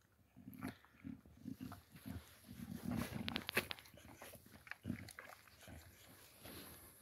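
Boxer dog eating from a metal bowl: irregular chewing and gulping, with a quick run of sharp clicks about three seconds in.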